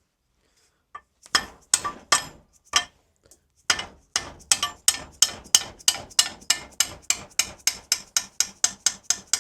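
Hammer striking metal to work a tight swing arm pivot bush loose. There are a few separate taps, then a steady run of quick blows, about four a second.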